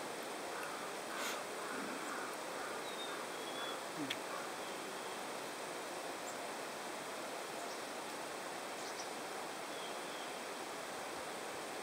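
Steady outdoor background hiss with a few faint bird chirps, and a single light click about four seconds in.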